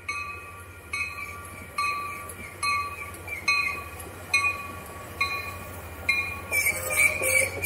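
A Caltrain commuter train arrives at the platform while a warning bell strikes steadily, a little more than once a second. About six and a half seconds in, the train's noise grows loud as it draws alongside, with a high hiss and a faint squeal.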